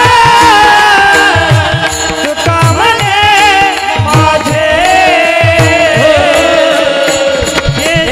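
Marathi devotional kirtan singing: a voice sings a long ornamented melody over steady held notes, with a hand drum whose deep strokes slide down in pitch in a quick repeating rhythm.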